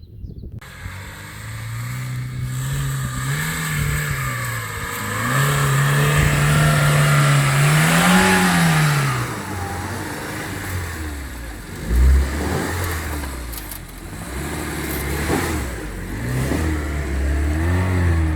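Lada Niva's four-cylinder engine driving off-road, its revs rising and falling several times, with a loud thump about twelve seconds in.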